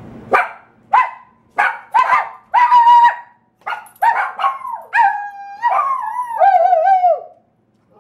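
Maltese puppy barking at high pitch, about ten short barks in a row. From about halfway in, the barks draw out into longer, wavering, howling calls that slide down in pitch.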